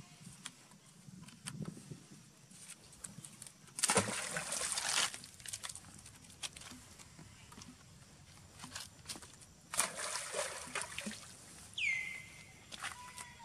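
Water splashing and sloshing as young macaques play in a shallow stone pool, with two louder bursts of splashing about four and ten seconds in. Near the end, a short high call that drops in pitch.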